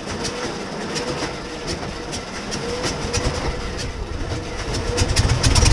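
Hawker Hurricane Mk XII's Packard Merlin V-12 being turned over by its starter during a start attempt, the propeller turning slowly: a steady starter whine with a rhythmic clatter. Near the end a louder low rumble builds up.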